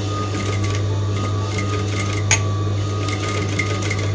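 Singer 3191D200A electric sewing machine stitching a seam: a rapid run of needle clicks, with one louder click a little past two seconds in.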